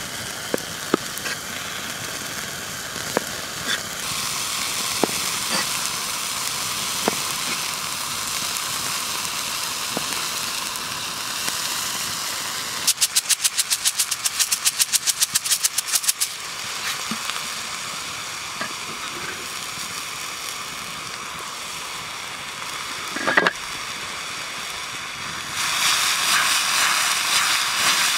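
Steady sizzling hiss under sharp knocks as a cleaver-style chef's knife slices seared beef against a wooden board. About halfway through comes a fast run of clicks lasting a few seconds as coarse salt is sprinkled over the slices. Near the end there is a thump, then a louder sizzle as the meat drops into a hot frying pan.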